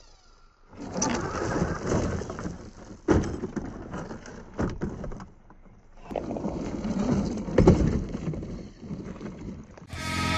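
RC rock crawler moving over loose rock scree: gravel and stones crunching and knocking under its tyres and body, with a few sharp knocks, the loudest about three quarters of the way through.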